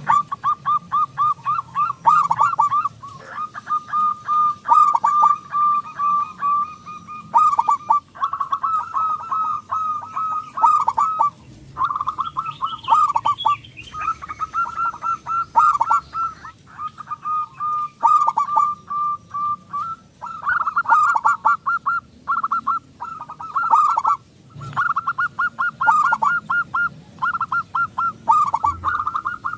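Zebra doves giving their loud, rapid staccato cooing trills, one run after another with hardly a break.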